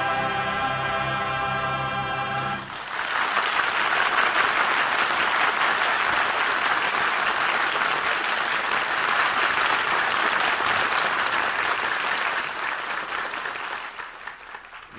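Orchestra and singers hold a closing chord for the first few seconds, then an audience applauds, the applause dying away near the end.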